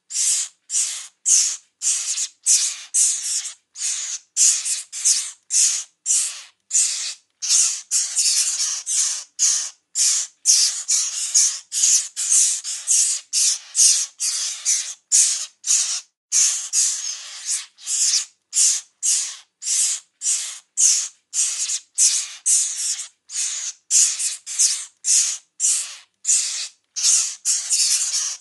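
Mockingbird chicks calling over and over, each call a short raspy burst, about two a second with short gaps between them.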